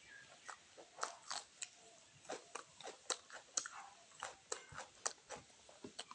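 Close-miked mukbang eating: chewing a mouthful of rice and fried food, with irregular wet mouth clicks and small crunches, several a second.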